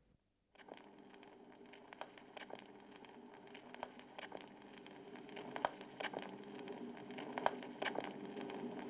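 Faint room tone: a low steady hum with scattered small clicks and crackles, slowly growing louder.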